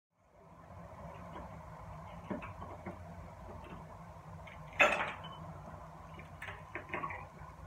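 Kitchen handling sounds: small clinks and knocks of dishes and utensils, with one loud sharp clatter about five seconds in, over a steady low hum.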